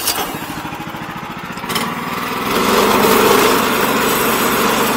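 A small engine running steadily, getting louder about two and a half seconds in.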